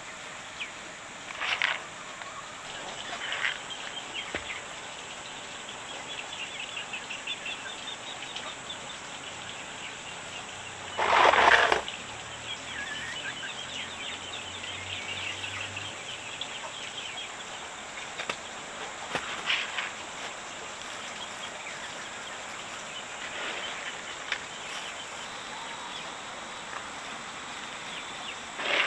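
Chickens clucking, with chirping throughout and a few short sharp calls. About eleven seconds in, one louder sound lasts about a second.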